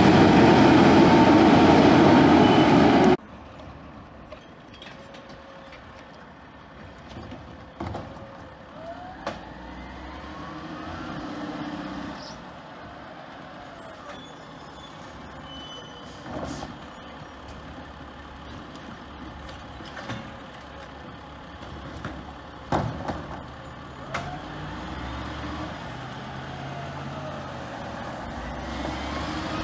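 Automated side-loader garbage trucks. A loud, close truck sound for about three seconds stops abruptly. Then a quieter truck runs steadily with rising and falling revs and scattered sharp knocks and clanks.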